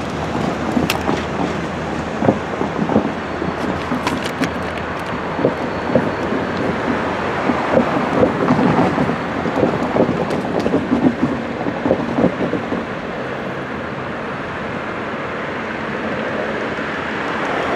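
Freight train rolling along the track, its wheels clattering with irregular knocks over the rails, easing off a little in the last few seconds. Wind noise on the microphone.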